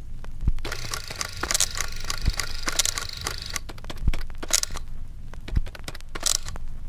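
Crackling, tearing noise full of sharp clicks, with a low thump about every two seconds.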